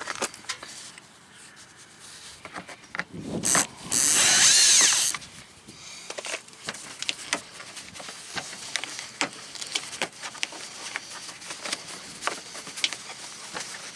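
Bosch 18V cordless drill/driver running for about a second with a wavering whine, backing out a Phillips screw from a license plate light housing. After it, scattered sharp clicks and taps as the loosened plastic lamp housing is handled.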